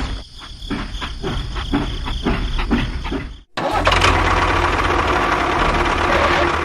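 Engine running with an uneven chugging rhythm, then a sudden cut a little over three seconds in to a louder, steady rushing drone.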